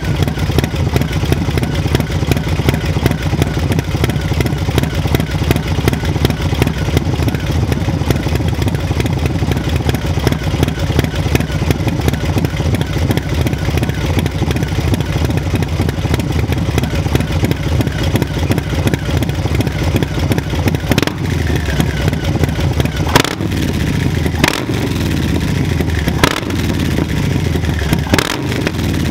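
Harley-Davidson Low Rider S with a stage 3 Milwaukee-Eight 122 V-twin, S&S 475 cam and Two Brothers Racing (TBR) exhaust, idling with a raspy pulsing exhaust note. In the last third the throttle is blipped a few times, with four sharp cracks from the pipe.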